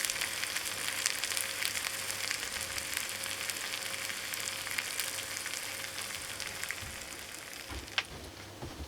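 Salt-grilled mackerel sizzling and crackling in a hot microwave grill pan, the spitting slowly dying down, with one sharp click near the end.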